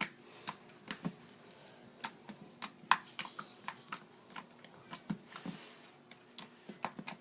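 Slime being squeezed and pressed in the hands, giving irregular sharp clicks and pops.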